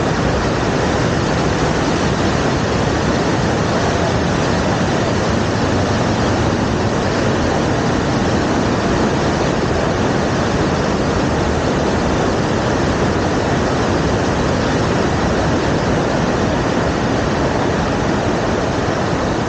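Waterfall, water falling and rushing in a steady, even noise that does not change.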